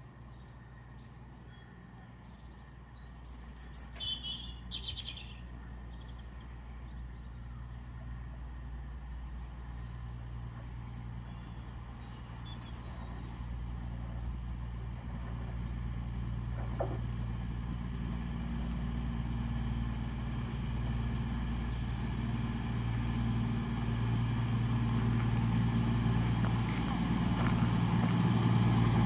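CrossCountry Class 221 Super Voyager diesel-electric train approaching and drawing into the platform, its underfloor diesel engines humming steadily and growing louder as it nears. Birds chirp twice in the first half.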